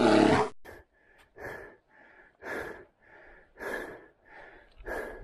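A hiker's heavy breathing from exertion: a loud voiced exhale at the start, then steady rhythmic in-and-out breaths about one cycle a second.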